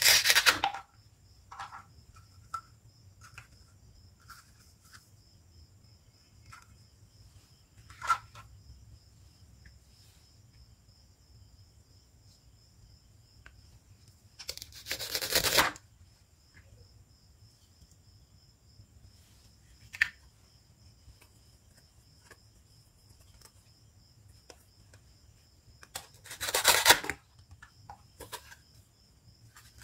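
Velcro tearing apart as a plastic toy knife cuts velcro-joined toy fruit and vegetables in half: three rips, each about a second long, one at the start, one around the middle and one near the end. Between them, light clicks of plastic toy pieces being handled and set down.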